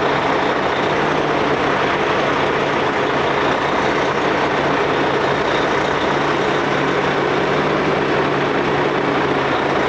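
Heavy diesel truck engine idling steadily: a low, even hum under a broad rushing noise.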